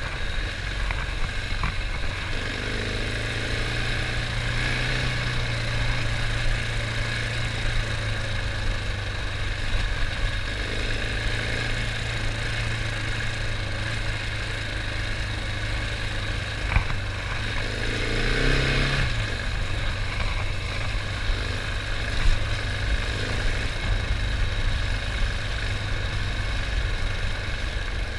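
Husqvarna 701 Enduro's single-cylinder engine running steadily at low revs on a dirt track, with a brief rise in revs a little past halfway. Two sharp knocks stand out, one about two-thirds through and one a few seconds later.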